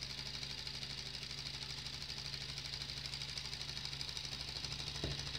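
LEGO-built solenoid engine running at speed: the plunger in the copper coil strikes back and forth, spinning the twin flywheels, giving a rapid, even clatter over a steady hum. A click near the end.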